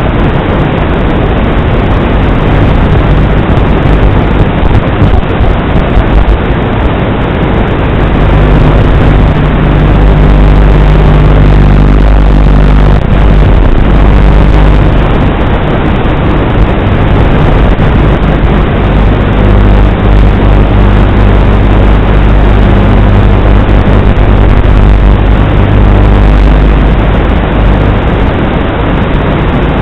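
Strong wind blasting the microphone: a loud, distorted rumble with a steady low hum running through it.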